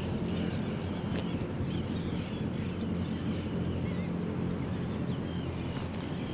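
Steady low hum of a boat engine idling, with many short, high bird calls over it.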